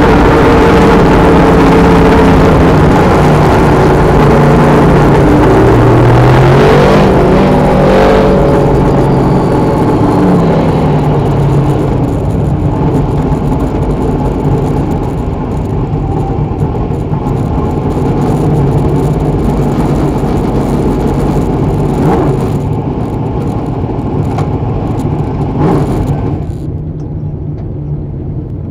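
Dirt modified race car's V8 engine heard from inside the cockpit, revving up and down, then easing off to a lower, steadier run as the car slows down. The high-pitched noise drops away near the end, leaving a low engine rumble.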